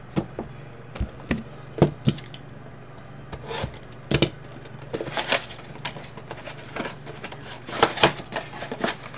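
A sealed cardboard trading-card box being picked up and handled: a series of sharp taps and knocks, then louder rustling, crinkling bursts about five and eight seconds in, over a steady low hum.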